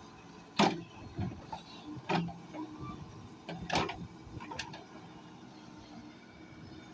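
Backhoe at work: several sharp knocks, the loudest about half a second in and near four seconds, over a faint steady engine hum.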